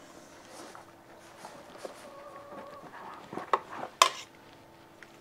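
Handling noises from lifting a thermal rifle scope out of its case: soft rustling and a few clicks, the sharpest about four seconds in.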